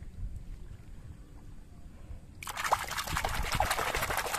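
Water splashing and sloshing as a plastic toy is swished back and forth by hand in shallow water, washing the mud off it; it starts suddenly a little past halfway and keeps on.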